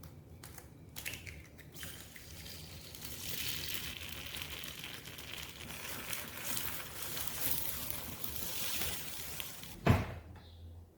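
Water running steadily for several seconds, with a single knock near the end.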